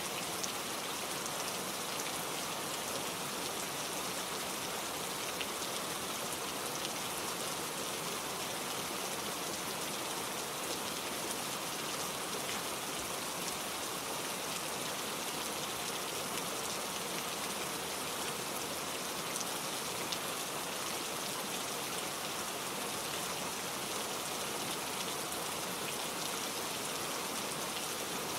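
Steady rain falling and pattering on surfaces, an even hiss with small drop ticks scattered through it.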